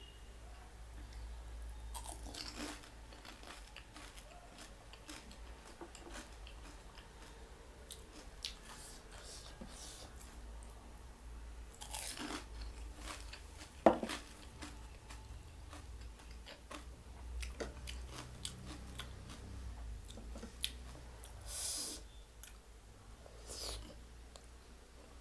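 A person chewing and biting food close to the microphone, with scattered small mouth clicks and a few short louder noises. A single sharp click about halfway through is the loudest sound. A low steady hum runs underneath.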